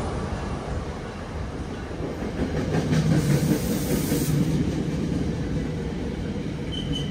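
Passenger train cars rolling on the rails, wheels clicking over rail joints. The sound fades, then swells again with a few clicks about three seconds in.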